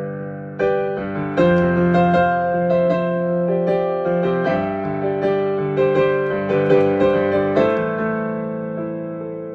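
Improvised piano: slow held chords under a melody of single struck notes, with a last chord near the end left to ring and fade.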